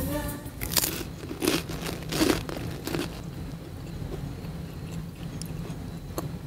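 Crisp cracker canapés being bitten and chewed: several loud crunches in the first three seconds, then softer chewing.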